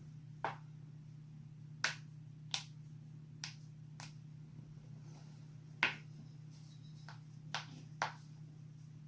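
A series of about eight sharp joint cracks, single pops spaced irregularly, the loudest about six seconds in, over a steady low hum.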